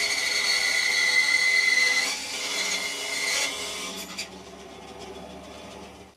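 Benchtop bandsaw running and cutting a curve through 2x4 timber: a steady high whine over a hissing rasp for the first four seconds or so. It then eases to a lighter running sound as the cut finishes, and stops suddenly just before the end.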